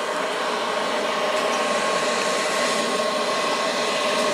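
Blow dryer running steadily as the air blower of a charcoal grill forge: a constant motor whine over a rush of air.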